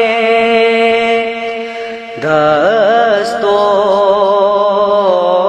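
Naat, an Urdu devotional poem, sung slowly: a long held note with a slight waver, then a new melodic phrase starting about two seconds in.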